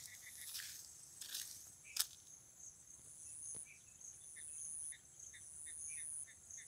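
Insects trilling in the grass: a high-pitched trill repeats in bursts of under a second over a steadier high buzz, with short lower chirps about twice a second. A single sharp knock about two seconds in is the loudest sound.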